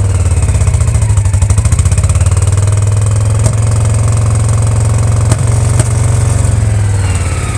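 Honda PC800 V-twin engine running at raised revs with an uneven, stuttering beat and three sharp pops in the second half, then the revs falling near the end. It is a misfire above 2600 rpm, which the owner suspects comes from faulty pulse generators.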